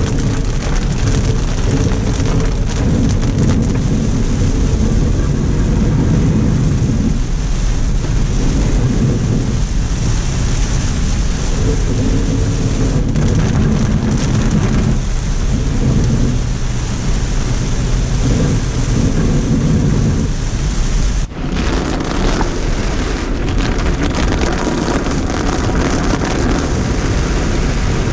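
Heavy tropical-storm rain with a steady low rumble throughout. About 21 seconds in, the sound dips sharply for a moment and then continues with a slightly different character.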